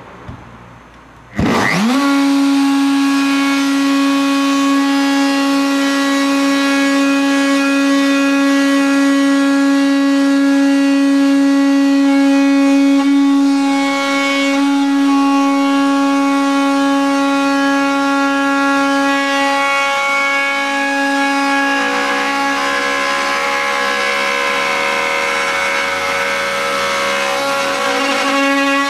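Handheld plunge router switched on about a second in: the motor spins up quickly to a loud, steady high whine. Near the end a flush-trim bit starts cutting the plywood, and the whine drops slightly in pitch with rougher cutting noise added as it trims the slot's edge.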